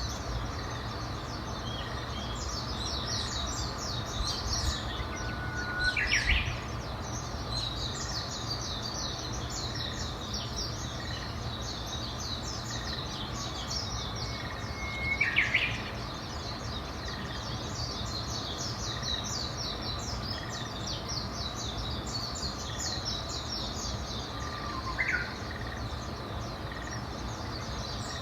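Wild birds chirping and singing continuously in a dense high twitter. Three times, a louder call starts on a short low note and sweeps sharply up in pitch. A steady low rumble of background noise runs underneath.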